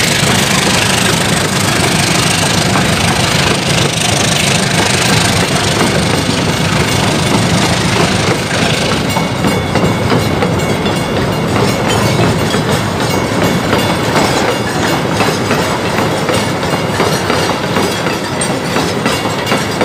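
A freight train's hopper wagons rolling past at close range: a loud, steady rumble and clatter of steel wheels on the rails, with the clicks of wheels over the rail joints becoming sharper about halfway through.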